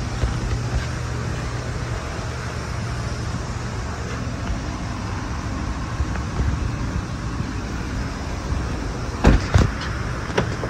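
Steady hum and hiss of background noise, then two sharp knocks close together near the end as the SUV's rear door is shut and handled.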